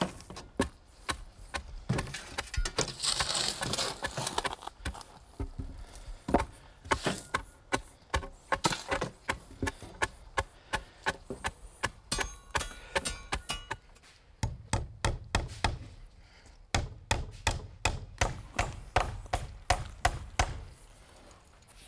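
Stone pack (3/4-inch stone and stone dust) being shovelled into a fence-post hole and tamped down in layers with the end of a 2x4. There is a gravelly rush a few seconds in, then repeated sharp thuds at about two a second.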